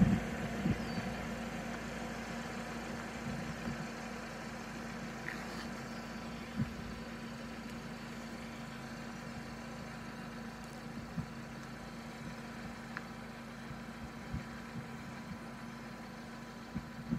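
A steady low engine hum, like a vehicle idling, with a few faint clicks and knocks.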